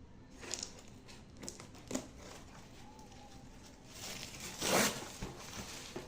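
Packaging and the appliance being handled during unboxing: scattered light taps and clicks with small crinkles, and one louder rustle or tear about three-quarters of the way through.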